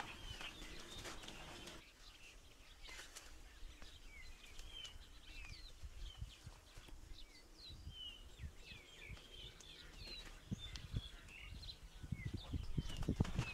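Small birds chirping: many short, high calls scattered throughout. Soft low thuds and rustling build up near the end.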